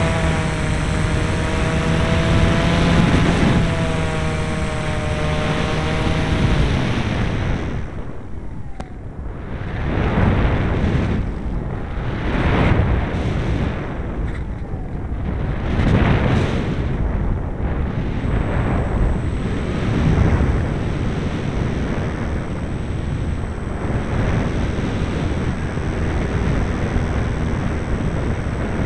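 Model airplane's motor and propeller running with a wavering pitch, cutting off about seven seconds in. After that, only wind rushing over the onboard microphone in gusts.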